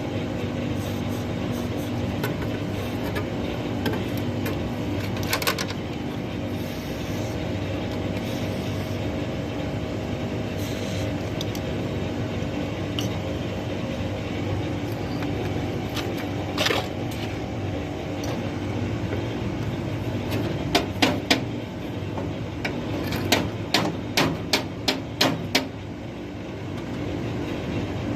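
A machine runs with a steady hum, overlaid with occasional sharp metal knocks and taps from tool work. Near the end comes a quick series of about a dozen knocks.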